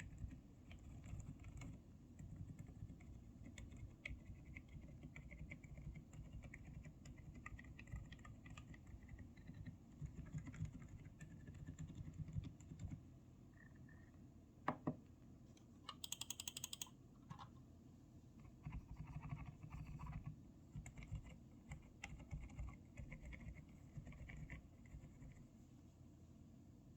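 Typing on a Zuoya GMK67 mechanical keyboard fitted with Outemu Silent Lemon V2 silent switches: quiet, muted keystrokes in quick runs with short pauses. A brief run of sharper, faster clicks comes a little past the middle.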